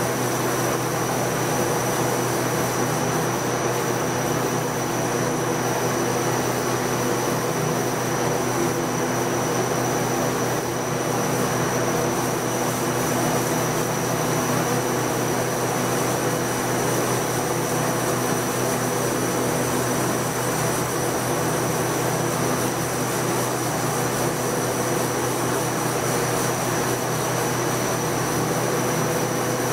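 Sandblasting cabinet in use: a compressed-air blast nozzle hissing steadily as it etches glass around a fabric-paint resist, over a steady motor hum.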